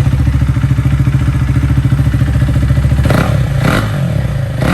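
Husqvarna Vitpilen 401's single-cylinder engine running with its muffler removed, an open exhaust giving a steady run of rapid, even pulses. About three seconds in, two short sharp noises stand over it.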